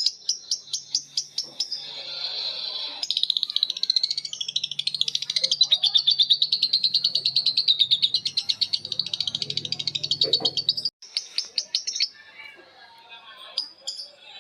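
Lovebirds chattering in their long 'ngekek' trill: a fast run of high, sharp repeated notes that carries on for about eight seconds and breaks off suddenly, with shorter separate chirps before and after it.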